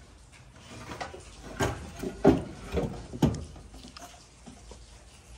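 A few sharp metal clunks and knocks, about four in quick succession around the middle, with a light scrape or two, as heavy engine parts are handled and bumped in the engine bay of a 5.7 Hemi V8 during a camshaft swap.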